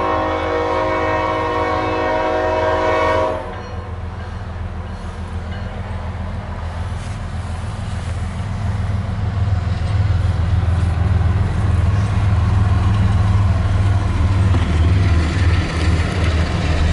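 A Norfolk Southern intermodal train led by a GE Evolution Series diesel locomotive: its multi-note horn sounds one steady blast that stops about three and a half seconds in. The train's low rumble then grows steadily louder as the locomotives come past.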